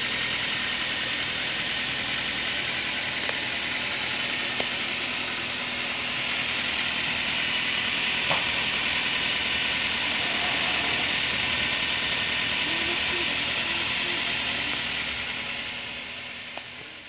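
Toyota Avanza/Daihatsu Xenia four-cylinder petrol engine idling steadily in the open engine bay, running on freshly changed 5W-30 oil, with a few faint ticks. The sound fades out near the end.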